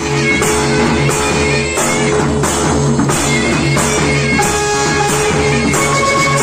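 Loud instrumental music for a Chadeya Nacha folk performance, with held melodic notes over a steady low bass and an even beat of about three strokes every two seconds.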